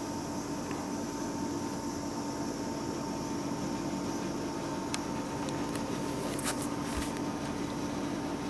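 Steady low hum under a faint hiss; about five seconds in, the small bell on a cat's collar tinkles faintly a few times as the cat moves its head.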